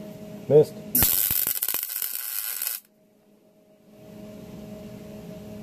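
MIG welder laying a short weld on sheet steel: about two seconds of loud crackling arc starting about a second in and cutting off sharply, run hot with a lot of wire. A short wavering tone comes just before it, and a low steady hum sits under the quieter parts.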